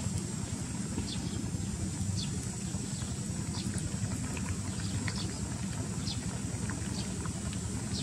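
Snails frying in a wok: a faint steady sizzle with scattered small crackles and pops, over a steady low rumble.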